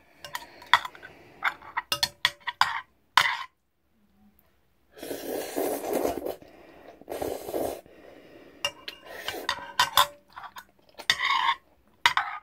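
Clinks and scrapes of eating utensils against a bowl, a string of sharp clicks at the start and again near the end. In the middle come two longer noisy stretches of a second or more each.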